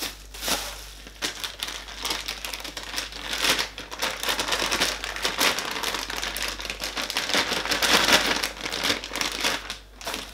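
Clear plastic packaging bag crinkling and rustling as a camera ball head is unwrapped and pulled out of it, a dense run of crackles that grows loudest about eight seconds in.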